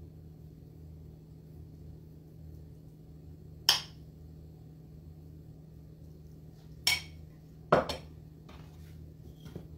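A few sharp clinks and knocks of a plate and kitchen utensils being handled on the counter: one about a third of the way in, then a quick pair and a faint last one near the end, over a steady low hum.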